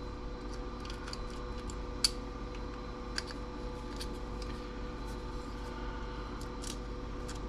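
Cutters snipping and clicking against a circuit board as a part is cut out: a handful of sharp clicks, the loudest about two seconds in, over a steady electrical hum.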